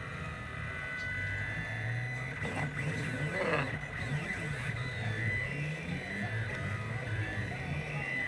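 3D printer stepper motors whining as the print head moves, the tones gliding up and down in pitch as the motors speed up and slow down.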